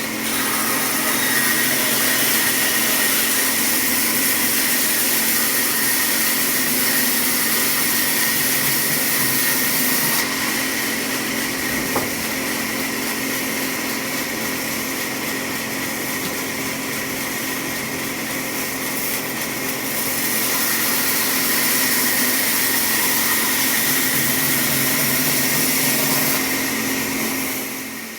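Power saw running steadily on wood, with a constant hum under a broad whirring hiss; it eases a little partway through, picks up again, and dies away near the end.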